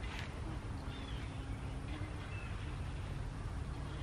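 Outdoor ambience: a few faint, short bird chirps over a steady low rumble, with a light click near the start and a faint low hum for a second or two.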